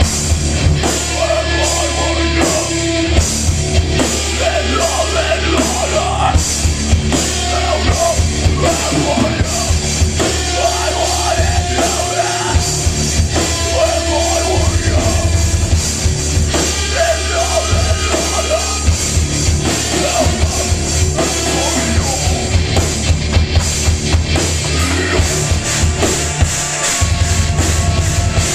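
Live heavy rock band playing loud: electric guitars, bass guitar and a drum kit, with a steady beat of drum hits throughout.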